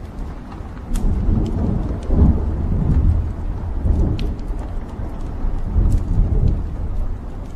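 Wood fire burning in a fireplace: scattered sharp crackles and pops from the logs over a low rumbling roar that swells about a second in and eases near the end.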